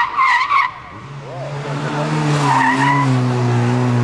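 Fiat Seicento Sporting Abarth rally car: tyres squealing briefly as it turns, then its 1.1-litre four-cylinder engine pulling hard, the note rising slowly as the car accelerates away, with another short tyre squeal in the middle.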